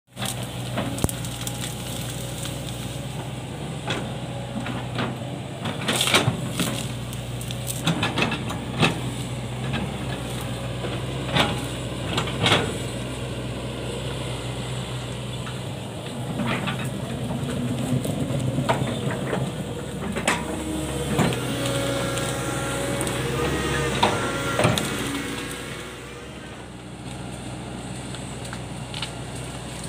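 Hitachi hydraulic excavator's diesel engine running steadily under load, with repeated sharp cracks and knocks as the bucket breaks and pushes brush and small trees. Some squealing comes from the machine in the later part, and the engine drops in level near the end.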